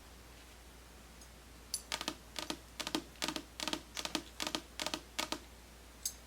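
A quick run of about a dozen light taps or clicks over three and a half seconds, then one more near the end.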